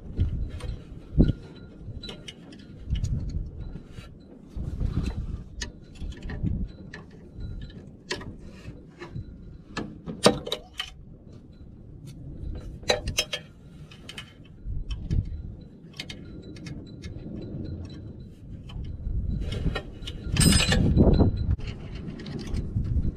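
Scattered metallic clicks and clinks of hand work on a garden tractor's belt and pulleys, over an uneven low rumble. Near the end there is a louder stretch of clicking and rattling as a one-handed bar clamp is set against the frame.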